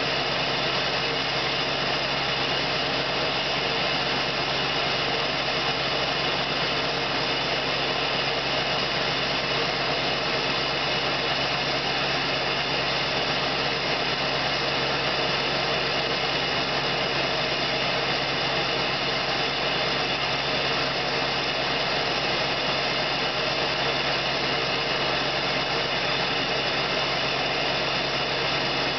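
2001 Ford F-250's 7.3 L Powerstroke V8 turbodiesel idling steadily at the tailpipe, still warming up after a cold start at 24 °F.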